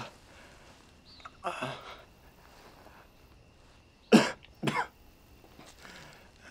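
A person coughing: a weaker cough about a second and a half in, then two loud coughs in quick succession about four seconds in.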